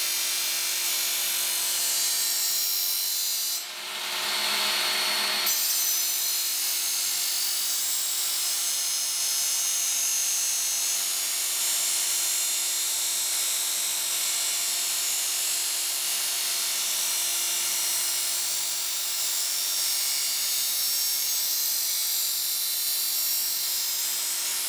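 Work Sharp Ken Onion electric belt sharpener running, its coarsest abrasive belt grinding the steel edge of a machete: a steady motor hum under a hissing grind, raising a burr along the edge. The grinding dips briefly about four seconds in, then carries on steadily.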